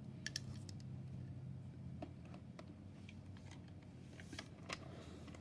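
Faint scattered clicks and light knocks of a plastic Princess telephone being handled and unclipped, over a steady low hum.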